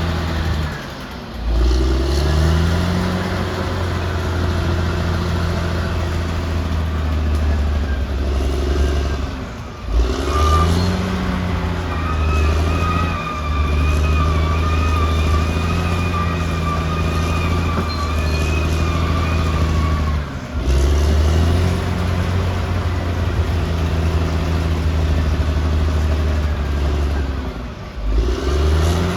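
Caterpillar D6R XL bulldozer's diesel engine working under load, a steady low drone with a thin high whine over it in places. Several times the sound cuts out briefly and the engine climbs back up in pitch as it takes load again.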